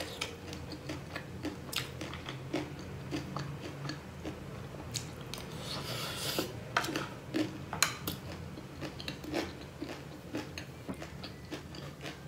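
Chewing and crunching a mouthful of crisp, spicy chatpatey made with dry noodles, as irregular crackly crunches with a few small clicks.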